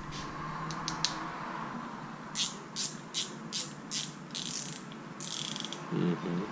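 Spinning fishing reel being worked by hand as it is checked: a few light clicks, then a run of about seven short ratcheting bursts roughly every half second.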